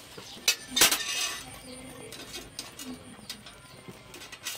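A sharp clink about half a second in, then a louder metallic clatter just under a second in that rattles on briefly, with a few lighter clinks after.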